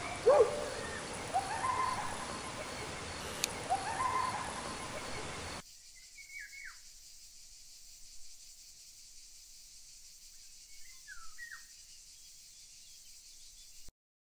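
Outdoor nature ambience: a steady hiss with several short curved animal calls, the first and loudest right at the start. About five and a half seconds in it drops to a quieter bed where a few brief falling chirps come twice, then it cuts to silence just before the end.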